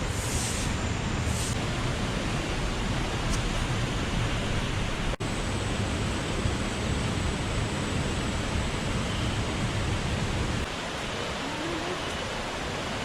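Steady rushing of water, an even roar with a strong low rumble. It breaks off for an instant about five seconds in, and the low rumble lessens near the end.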